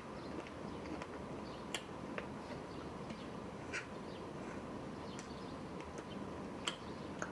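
A person eating and chewing close to the microphone, with a few sharp mouth smacks or clicks.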